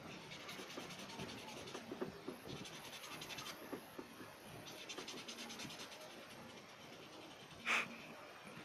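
Pencil scratching on paper in quick short strokes, in three spells of about a second each. A brief sharp noise near the end is the loudest sound.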